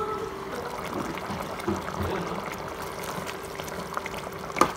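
Creamy sauce simmering in a pan, with a steady hum underneath and scattered small clicks. A sharp knock near the end is the loudest sound.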